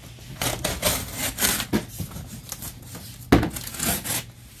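Black plastic stretch wrap on a pallet being cut with a box cutter and pulled away from the cardboard boxes, in bursts of crackling and rustling. The loudest burst comes about three seconds in.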